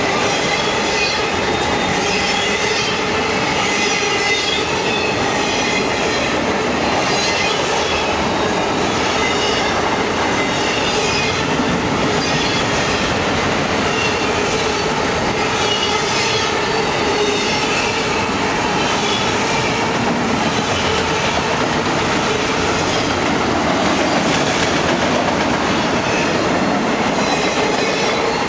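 Freight train of autorack cars rolling past: a steady, unbroken noise of steel wheels on rail and rattling car bodies, with thin steady tones ringing above it.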